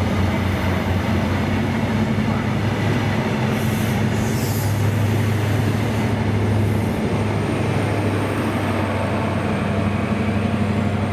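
Diesel train engine running with a steady low drone, under continuous rail noise. There are two short bursts of high hiss about four seconds in.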